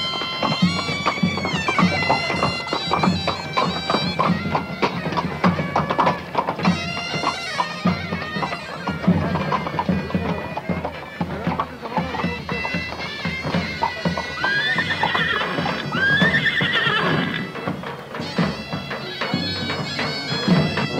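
Shrill, droning folk reed-pipe music with drum beats throughout. About fifteen seconds in, two rising, wavering high calls sound over the music.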